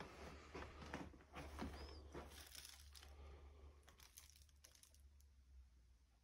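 Faint footsteps crunching and crackling over broken plaster, paper and debris on the floor of a derelict room, a scatter of small crackles that thin out after about four seconds.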